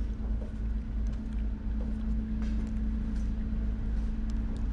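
Passenger ferry's engines running, a steady low drone with a constant hum.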